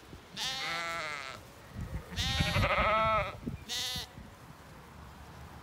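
Zwartbles sheep bleating: three wavering calls in quick succession, the middle one the longest and loudest.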